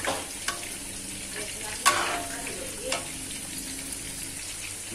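Spatula scraping and knocking against a metal wok while a thick rice-flour sate sauce is stirred, a few separate strokes with the loudest about two seconds in, over a steady low hiss from the pan.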